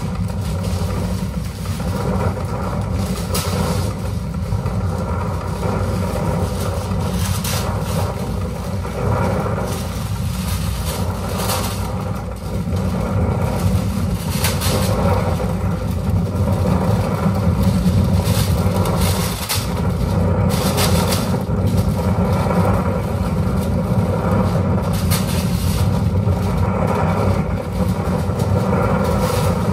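Live electronic set built from field-recording samples: a loud, dense low rumble with several sustained tones layered above it, broken by short hissing noise bursts every few seconds.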